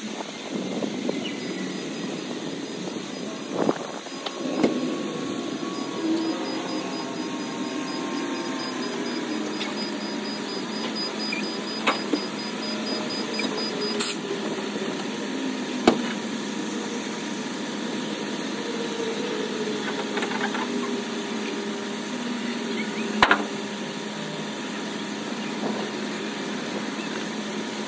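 Vehicle engine running steadily, its pitch drifting slowly up and down, with a few sharp knocks scattered through.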